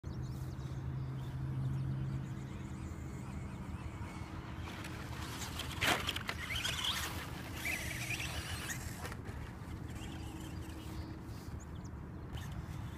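ECX electric radio-controlled off-road car driving on a dirt track, a sharp knock about six seconds in followed by the motor whining up and down for a couple of seconds.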